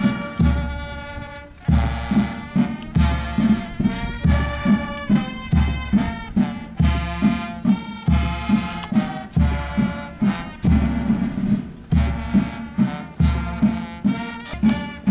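Brass band playing a march, trumpets and trombones over a steady, even drum beat.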